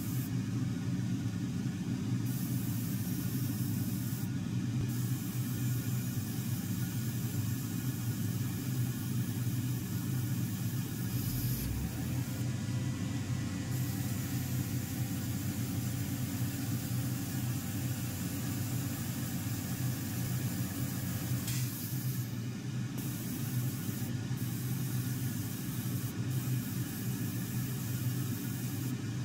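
Paint spray gun hissing steadily as it coats the petals, with a few brief breaks in the spray, over a constant low hum.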